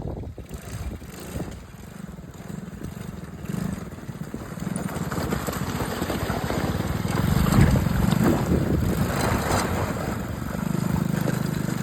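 ATV engine running, its throttle opening and easing off in turns, louder from about the middle on.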